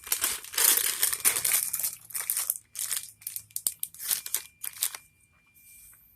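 Plastic snack bag of gummy fruit mix crinkling and rustling as it is handled, in a run of loud rustles that stop about five seconds in.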